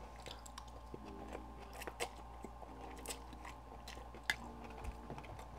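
Close-miked chewing of a mouthful of spicy noodles: soft wet mouth clicks and smacks, faint.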